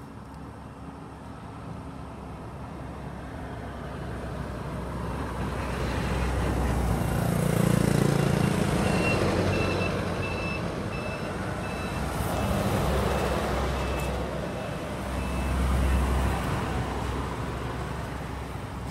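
A heavy vehicle's engine rumbles close by, growing louder over several seconds and then easing off. A reversing alarm beeps steadily at an even pace for several seconds in the middle.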